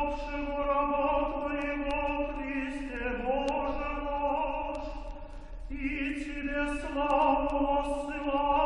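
Orthodox liturgical chant sung by male voices, long notes held and then stepping to new pitches about three seconds in and again near seven seconds, over a steady low hum.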